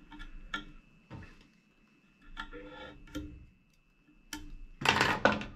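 Small ticks, clicks and rustles of hands and a fly-tying tool working thread at the vise while the head of the fly is whip-finished, with a louder short noisy burst near the end.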